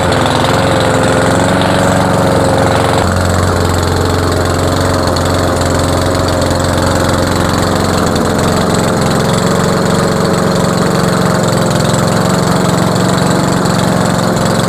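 Cub Cadet lawn mower's 173cc PowerMore single-cylinder engine running steadily, its note changing about three seconds in. It sounds like an old motorcycle and is idling a little low, which the owner takes to be a slightly rich mixture.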